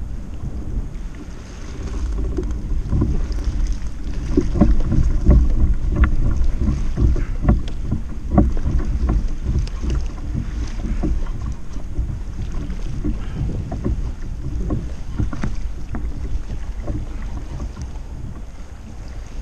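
Wind buffeting the microphone over water lapping and slapping against a plastic fishing kayak's hull, with irregular small knocks, busiest and loudest in the first half.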